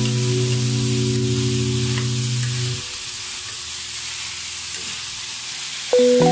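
Small wild bitter gourds sizzling in oil in a metal wok, stirred and turned with a metal spatula. Held background music notes sound over the first half and fade out, and music comes back in near the end.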